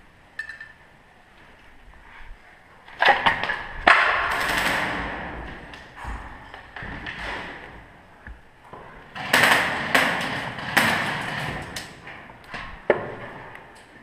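A series of sharp knocks and bangs echoing through empty concrete rooms, the loudest in two clusters, one about three to four seconds in and one about nine to eleven seconds in, with scuffing and gritty noise trailing after each.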